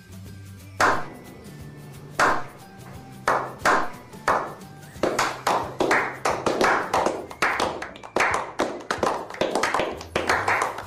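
A slow clap from a small group: single claps more than a second apart that quicken about five seconds in into fast applause, over a low steady music bed.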